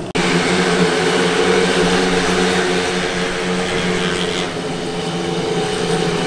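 A steady engine drone whose pitch holds even, with no revving up or down, cut off for an instant just after the start.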